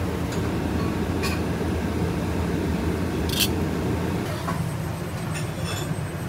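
Steady low rumble of a working restaurant kitchen, with a few sharp clicks and clinks of utensils or dishes scattered through it.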